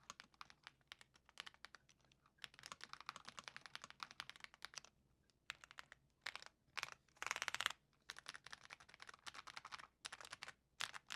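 Typing on an Ajazz AK980 mechanical keyboard with Gift V2 switches and Womier keycaps: fast bursts of keystrokes with brief pauses, and a rapid flurry about seven seconds in.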